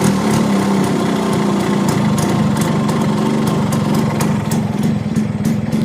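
Yamaha RX-G's single-cylinder two-stroke engine idling steadily through its stock exhaust.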